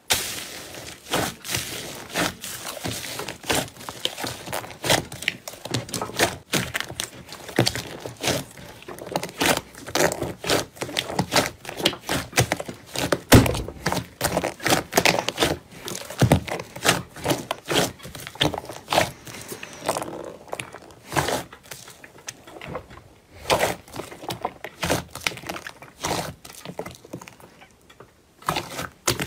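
Slime being kneaded and squeezed by hand in a bowl, giving a dense, irregular run of short wet squelches and clicky pops.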